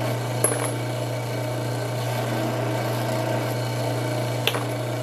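Drill press motor running steadily with a low hum, and two light metallic clicks, one about half a second in and one near the end.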